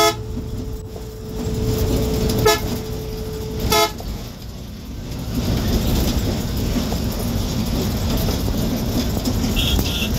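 Bus horn honking: a blast at the start and two short toots about two and a half and four seconds in, over the bus's engine and road noise, which grows louder from about five seconds in.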